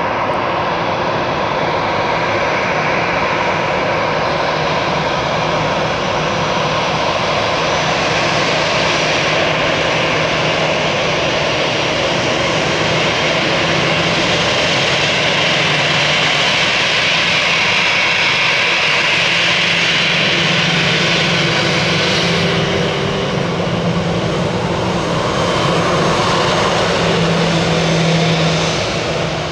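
Airbus A319's twin jet engines running at taxi power as the airliner taxis and turns past close by: a steady rushing noise with a high whine that swells in the middle as the aircraft passes broadside, easing slightly near the end as it turns away.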